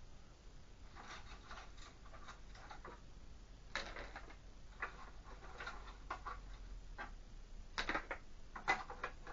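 Pieces of lava rock clicking and rattling as they are handled and dropped into a plastic canister-filter media tray, in scattered small clatters with a louder pair near the end.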